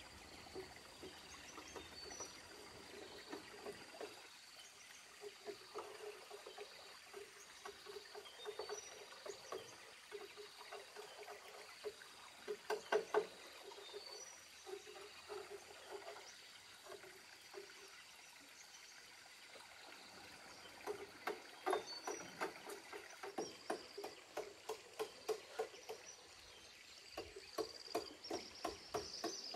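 Bursts of quick, short knocks, a few a second, over a faint steady background. The knocks are loudest about twelve seconds in and again from about twenty-one seconds on.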